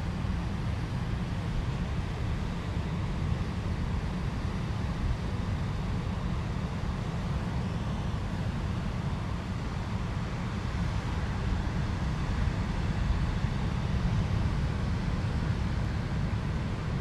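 Wind buffeting the microphone: a steady low rumble with a faint hiss above it.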